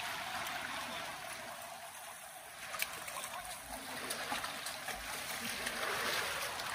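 Steady rush of flowing river water, with one sharp click about three seconds in.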